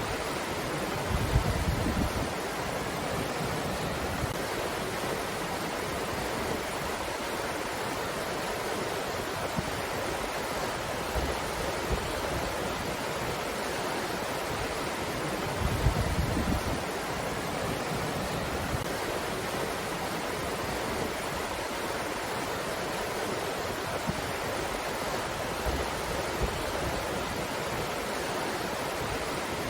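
Steady rushing breeze, an even hiss of wind, with a brief low rumble about a second in and again about sixteen seconds in.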